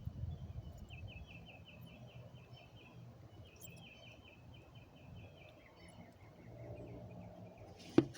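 A bird chirping in quick repeated runs, over a faint low hum. A single sharp click comes near the end.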